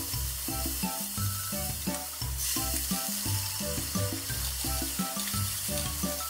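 Green peppers and sliced mushrooms sizzling in a frying pan as they are stir-fried, the hiss growing louder about two and a half seconds in. Background music with a steady bass line plays over the frying throughout.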